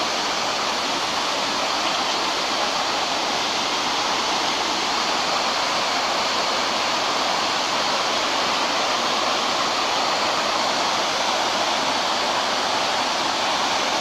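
Rocky mountain stream rushing steadily over cascades of rocks.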